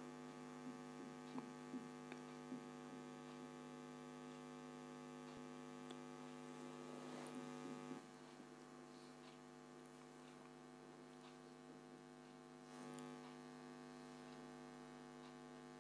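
Near silence: a faint, steady electrical hum, with a few light taps in the first three seconds.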